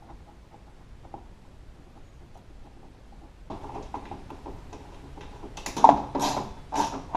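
Metal window track being worked into a car door: a few faint clicks, then from about halfway scraping and rattling, with several sharp clatters near the end.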